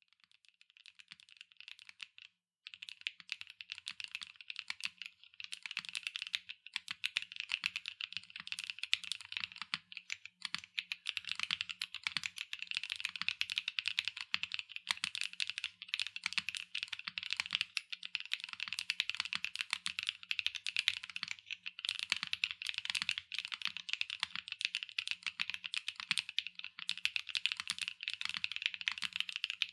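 Fast, continuous typing on a SAAG65 custom mechanical keyboard with Chaosera Cupid linear switches, an aluminium plate, O-ring mount, no foam and PBT double-shot keycaps. The keystrokes are softer for the first two seconds and pause briefly, then run on as a dense, steady clatter.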